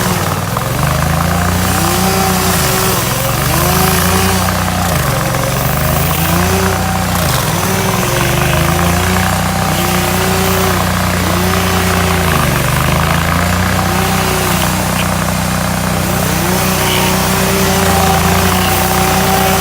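Hydraulic stump grinder's engine running hard while grinding a stump, its pitch dipping and recovering every second or two as the cutting load pulls it down.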